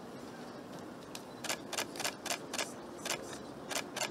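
A run of sharp, uneven clicks, about two or three a second, starting about a second in.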